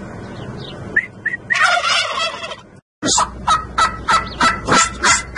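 Domestic turkey toms gobbling in a flock: a rattling gobble about halfway through, then, after a moment's silence, a fast run of short repeated calls, several a second.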